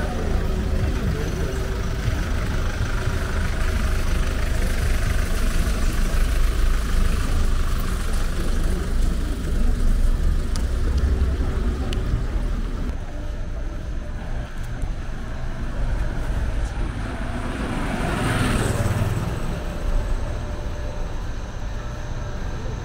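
City street traffic: a steady wash of passing cars with a deep rumble underneath, and one vehicle passing close about eighteen seconds in.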